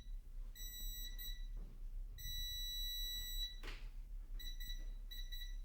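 Electronic stud finder beeping as it is slid along the wall: several short beeps, then one longer held tone lasting over a second, the beep that signals a stud under the sensor. A single sharp tap comes just after the long tone.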